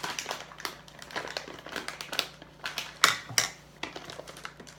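Plastic M&M's candy bag crinkling and rustling as a child handles it and reaches in, with irregular crackles and small clicks; the loudest crinkles come about three seconds in.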